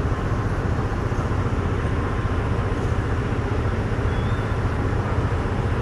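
Steady city background noise: an even low rumble with no distinct events.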